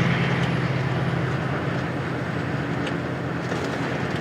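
Car driving, with steady engine and road noise heard from inside the cabin.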